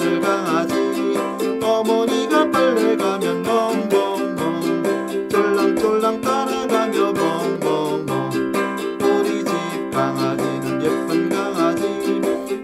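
Ukulele playing a Korean children's song, steady strummed chords under a moving melody line.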